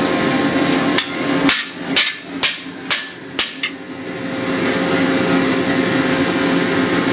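Blacksmith's hand hammer striking a red-hot steel bar on the anvil: about six blows in quick succession, about two a second, from about a second in to about four seconds in. A steady hum runs underneath.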